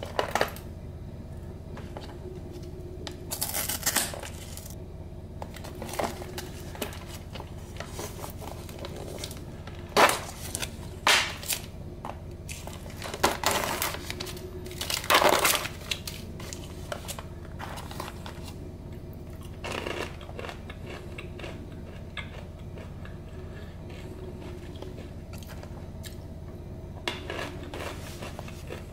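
Thin clear plastic tub of wasabi-coated peanuts being handled and opened, its plastic and peeled-back lid film crackling and crinkling in irregular bursts, the loudest a little after the middle, over a faint steady hum.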